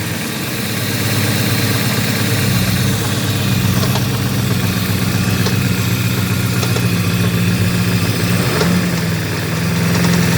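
Porsche 928 S4's 5.0-litre V8 idling steadily, with a fast clacking from the engine running through the idle.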